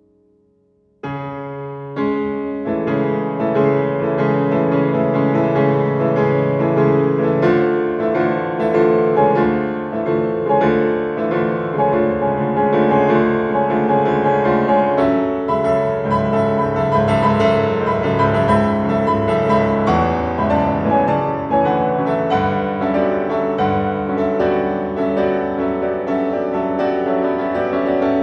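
Solo grand piano. A faint, dying chord gives way about a second in to a sudden loud entry, followed by continuous loud, dense playing.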